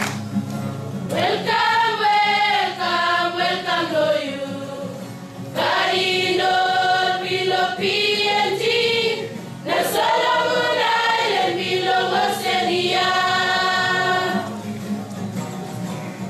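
A group of women singing together in long phrases, with short breaks between the phrases.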